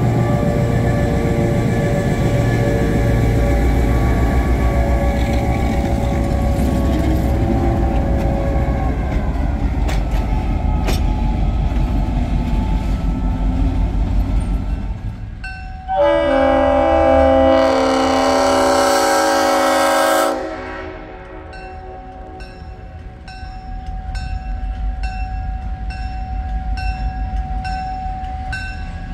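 Diesel locomotive engine idling close by with a steady low rumble. About halfway through, a diesel locomotive horn sounds one long blast of about four seconds, a chord of several notes. A bell then rings steadily, about twice a second, as the locomotive approaches.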